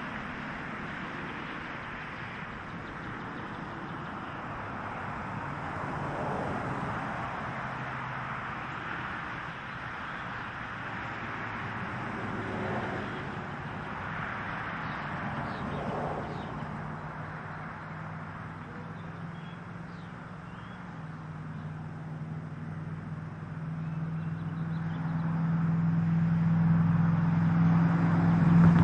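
Car engine idling with a steady low hum that grows louder over the last several seconds, with faint bird chirps in the middle.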